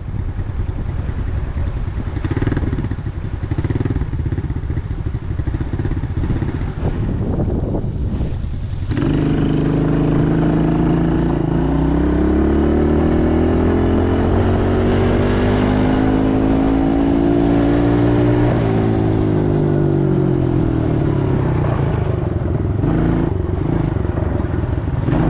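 ATV engine running under way. For the first nine seconds it is rough and uneven. It then settles into a strong, steady note that climbs in pitch as it speeds up for about ten seconds, and the pitch drops again near 18 seconds.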